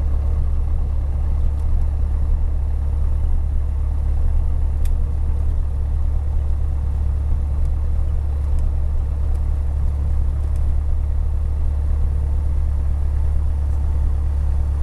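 Piper Warrior's four-cylinder Lycoming engine and propeller running steadily at low power, a constant low drone heard inside the cabin during the landing rollout.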